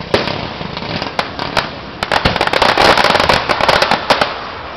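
Aerial fireworks going off in a rapid barrage of sharp bangs and dense crackling, thickest through the middle of the stretch.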